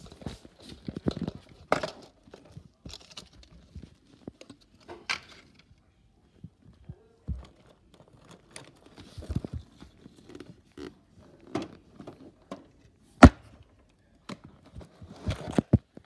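Irregular rustling, taps and knocks of a handheld camera and toys being handled, with one sharp knock about thirteen seconds in and a quick run of taps near the end.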